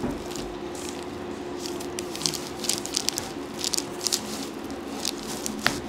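Hands rubbing and pressing on a patient's back during chiropractic soft-tissue work: a run of soft squishing and crackling strokes of skin and cloth, over a steady low hum. A single sharper click comes near the end.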